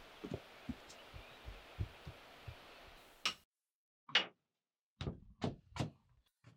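Footsteps on a forest path: soft low thuds about three a second over a steady outdoor hiss, which cuts off suddenly a little over three seconds in. Then near silence, broken by four separate sharp knocks.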